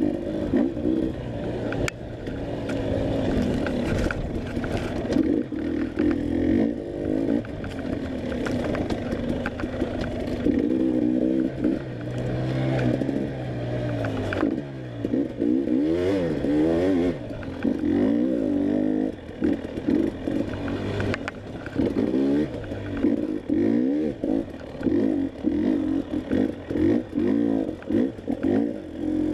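Enduro dirt bike engine revving up and down over and over as it is ridden hard, the throttle opened and chopped in quick succession, with scattered knocks and clatter.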